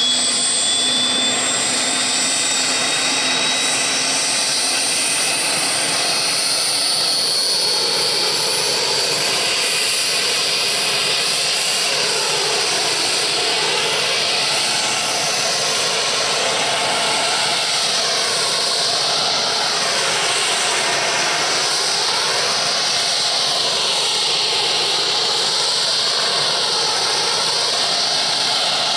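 Eurocopter AS532 Cougar's twin turboshaft engines and main rotor running on the ground as it spools up before take-off. A high turbine whine climbs in pitch over the first few seconds, then settles into a loud, steady rush with a slowly sweeping whoosh.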